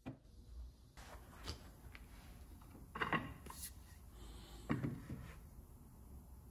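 A few irregular knocks and clunks from objects being handled, the loudest about three seconds in and again near five seconds, over a low steady hum.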